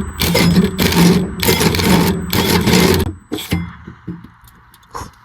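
Power drill running under load in several bursts, cutting a hole through the van's floor, and stopping about three seconds in. Then a few light clicks and knocks.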